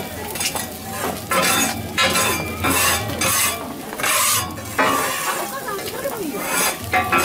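Okonomiyaki frying on a flat iron griddle with a continuous sizzle, cut across by short, repeated scraping strokes of a metal spatula on the griddle surface, about one or two a second.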